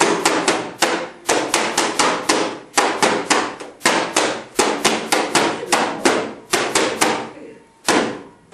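Junk-band percussion: hands and sticks beating plastic bottles and other found objects in a fast, even rhythm of sharp hits, about four a second, ending with a single last hit near the end.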